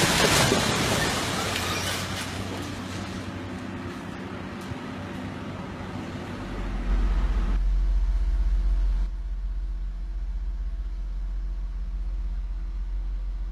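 Rubble crashing down as a building section collapses under an excavator's demolition, the noise fading over the first few seconds. From about seven seconds in, a steady low engine drone from heavy machinery takes over.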